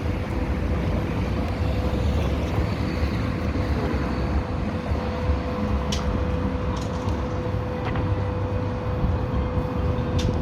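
A steady whine from the camera gimbal's motors, one held tone, over a constant low rumble of street traffic.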